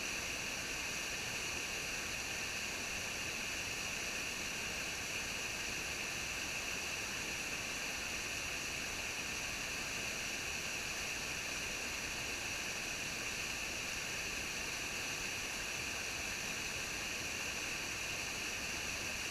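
Running water trickling steadily, an even, unbroken hiss with no drips or splashes standing out.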